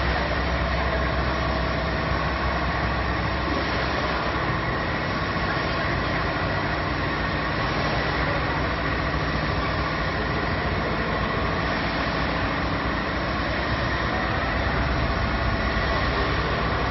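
Wafer production line machinery running: a steady, even mechanical noise with a faint hum.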